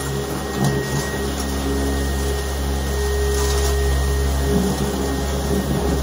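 Cordless stick vacuum with a motorised brush bar running steadily as it sucks up loose debris from a glass surface: a continuous motor hum with a faint, even hiss of air.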